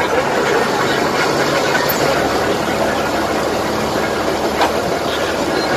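Salvage crane's engine running steadily under load while it slowly hoists a sunken tugboat on its wire rope.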